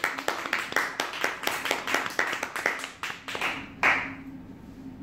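Small audience clapping, the claps thinning out and stopping about three and a half seconds in, followed by one louder short sound.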